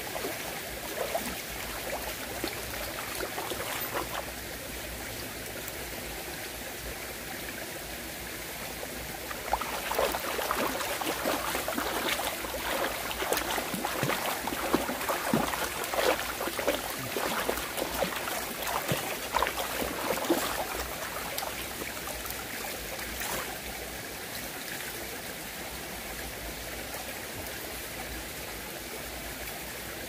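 Shallow stream water running steadily over rocks. From about ten seconds in to about twenty seconds in, irregular splashing and sloshing as a cloth is washed by hand in the stream.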